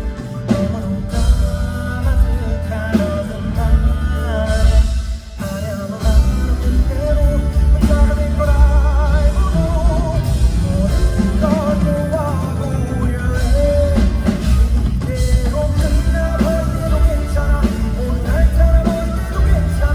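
A live rock band playing a song with drums, bass and guitar under a singing voice held with vibrato. The band drops back briefly about five seconds in, then returns at full strength.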